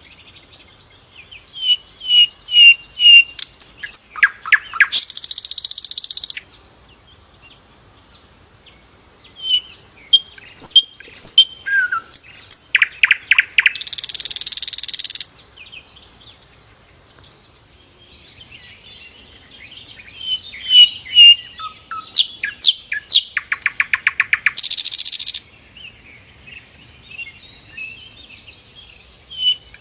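A sikatan londo flycatcher singing in repeated phrases about every ten seconds. Each phrase is a run of clear chirps, then a fast buzzy trill, then a harsh hissing burst lasting about a second and a half.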